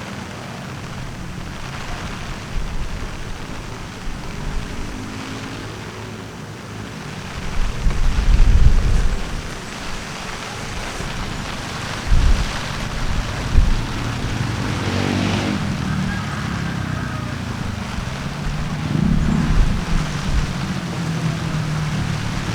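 Strong wind gusting and buffeting against the microphone in heavy low rumbles, with vehicles passing on a nearby highway, their engine hum rising and falling.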